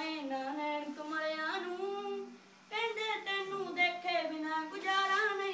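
A high voice singing a Punjabi song unaccompanied, with long held, wavering notes and a short breath pause about two and a half seconds in.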